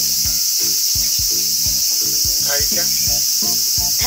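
Insects chirping in a dense, steady high chorus, over background music with a steady beat; a brief voice about two and a half seconds in.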